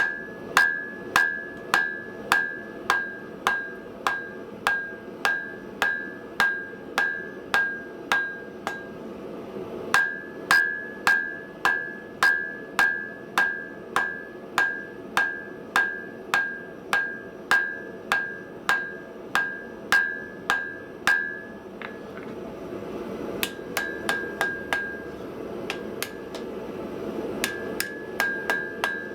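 Forging hammer striking hot steel on an anvil in a steady rhythm of about two blows a second, each blow with a bright anvil ring, knocking the corners of a square taper down to an octagon. The hammering pauses briefly twice, and the last blows are lighter.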